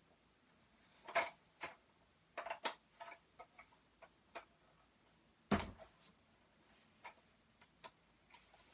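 Skeleton prop parts and their packaging being handled: scattered irregular clicks and knocks, with one heavier thump about five and a half seconds in.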